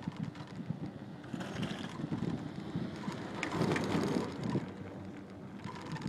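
Wind buffeting the microphone while riding a chairlift: a rough, crackling rush that swells for about a second near the middle.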